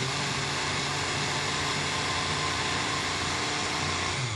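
Electric blender running steadily, blending a batter of soy milk, cornstarch and frozen spinach, and switched off at the very end.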